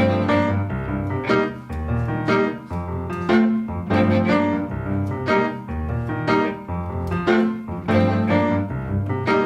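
Jazz ensemble playing an odd-time tune in five: piano striking repeated chords over walking double bass notes, with bowed strings underneath.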